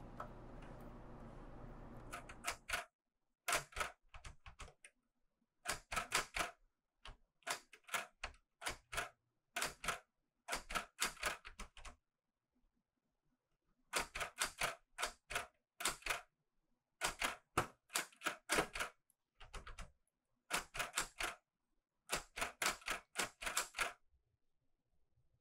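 Clover 810S manual typewriter being typed on: quick runs of keystrokes clacking in bursts of a few seconds, starting about two seconds in, with short pauses between them and a longer pause of about two seconds near the middle.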